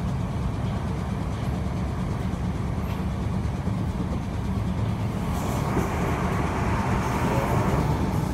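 Merseyrail electric train running at speed, heard from inside the carriage: a steady low rumble of wheels on track, with a louder rushing noise building from about five seconds in.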